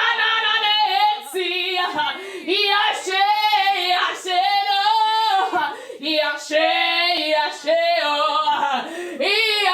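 A woman singing alone and unaccompanied in a high, wavering voice with strong vibrato, in phrases a second or two long with short breaths between them.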